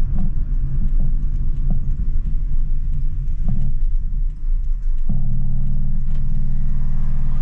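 Car engine and road rumble heard from inside the cabin; about five seconds in it changes suddenly to a steady low drone.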